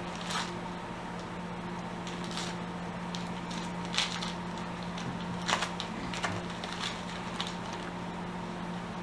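Scattered crinkles and crackles of gift-wrapping paper as a dog tugs at a wrapped present held out in a hand, over a steady low hum.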